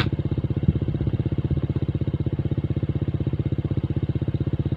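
Motorcycle engine running steadily at low revs with an even, fast beat, and one brief knock under a second in.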